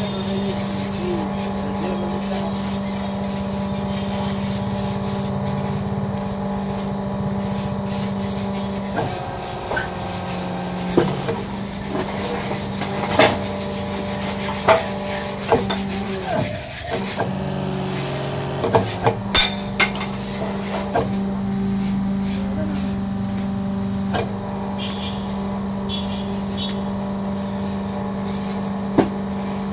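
Electric motor driving the hydraulic pump of a fly ash brick press, running with a steady hum. Between about 9 and 21 seconds the hum drops lower while the press is worked, with a string of sharp metallic clanks.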